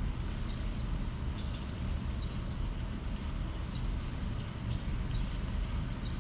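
Steady low background rumble of outdoor ambience, with short, faint, high chirps of small birds scattered through it.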